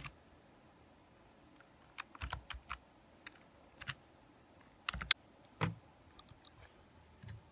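Fingers typing on a computer keyboard: faint key clicks in short, irregular bursts with pauses between.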